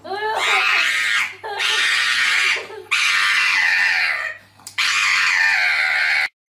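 Loud wailing: four long, drawn-out cries with short breaks between them.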